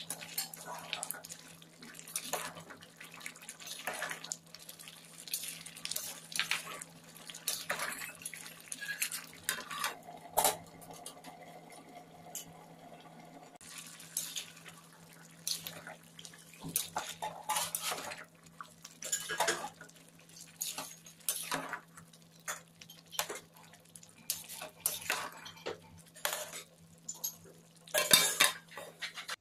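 Metal ladle scraping and knocking against a metal cooking pot in irregular strokes as rice and peas are stirred in their cooking liquid. Near the end there is a louder clatter as the lid is set on the pot.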